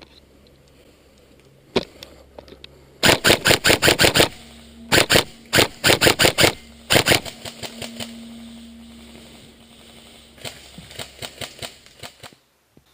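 Airsoft electric guns firing: several loud, rapid strings of shots a few seconds in, then fainter rapid shots near the end.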